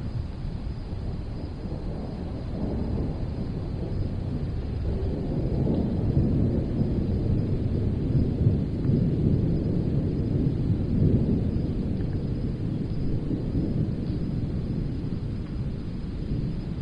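Distant thunder rolling over a steady soft wind: a deep rumble that swells about a third of the way in, stays strongest through the middle, then slowly fades.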